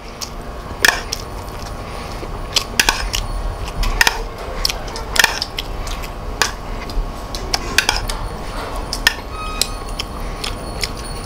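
Metal spoon clinking and scraping against a bowl of fried rice while eating: sharp, irregular clinks roughly once a second.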